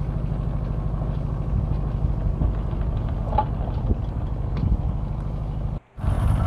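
Mini excavator's diesel engine running steadily with an even low throb as the machine tracks slowly along. The sound drops out for a moment near the end, then carries on.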